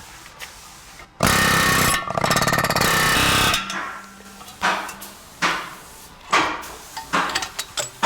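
A pneumatic air hammer runs in one loud burst of about two and a half seconds, followed by a string of about five separate metal knocks. The tools are spreading the clamp gap on a rusted, seized steering knuckle to free it.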